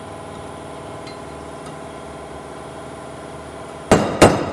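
A steady machine hum, then near the end two sharp hammer strikes on metal as parts are knocked off a rear axle shaft.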